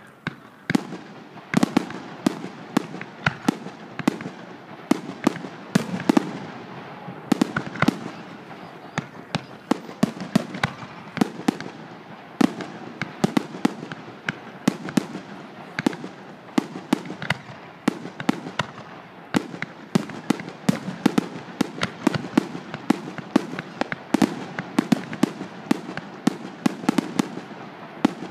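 Aerial fireworks bursting in a rapid, unbroken series of sharp bangs, several a second, with a steady crackling haze between them.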